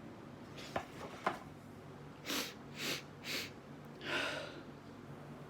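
A person's quiet breathing after a sneeze: two faint clicks, then three short breaths about half a second apart and one longer breath, over a low steady hum.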